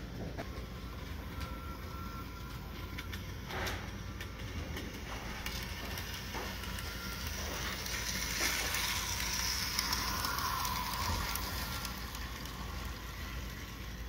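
Bachmann Thoroughbred HO scale model train running on its track, a steady whirring of its small motor and wheels that grows louder as the locomotive passes close about eight seconds in, then fades.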